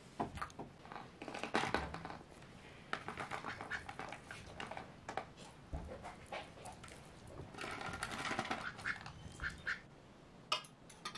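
White domestic ducks quacking, many short calls in quick runs.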